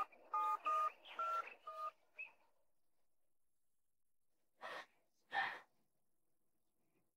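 Mobile phone keypad dialing tones: about five quick two-note beeps in the first two seconds. Two short, brief noises follow about five seconds in.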